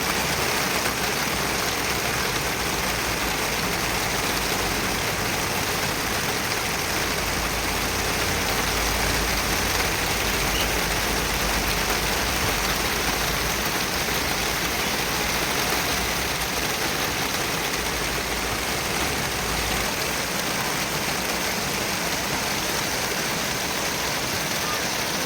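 Heavy rain falling steadily, an even dense hiss with a low rumble underneath.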